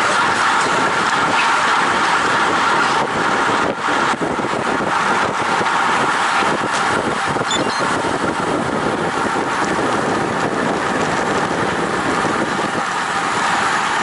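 Steady rush of wind on a bicycle-mounted camera's microphone at about 59 km/h, mixed with road bike tyres rolling on asphalt. The noise dips briefly about four seconds in.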